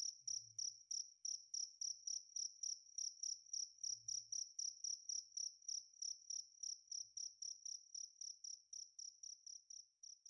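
A cricket chirping: one high, clear chirp repeated evenly about four times a second, growing fainter near the end.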